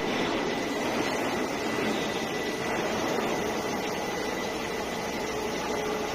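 Steady running of a gear-machining machine working the teeth of a large 42CrMo steel gear: an even mechanical whir with a thin, constant high whine over it.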